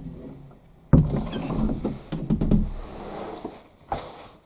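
An old door being pushed shut: a thud about a second in, followed by wooden creaking and rattling, and a second short knock near the end.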